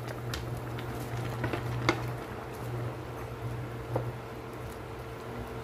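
Sliced cabbage scraped off a plate into a pot of simmering soup with a wooden spatula and stirred in: a few scattered light taps and clicks of the utensil on plate and pot, with soft wet stirring, over a steady low hum.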